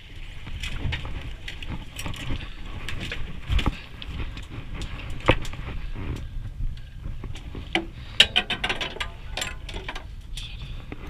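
Low rumble of wind and sea noise on an open boat, with scattered sharp clicks and knocks from a fishing rod, reel and gear being handled, and a quick run of clicks about eight seconds in.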